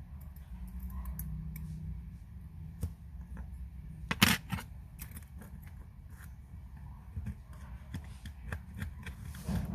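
Light clicks and taps of small metal watchmaker's tools on the parts of a Seiko 6119 automatic movement being worked on, with a louder clatter about four seconds in and another near the end. A low steady hum runs underneath.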